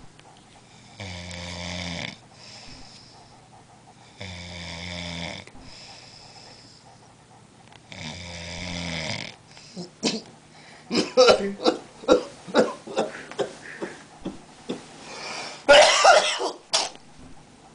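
A person snoring, three long rattling snores a few seconds apart, then a run of loud, short, irregular sounds from the sleeper, with one longer, loudest burst near the end.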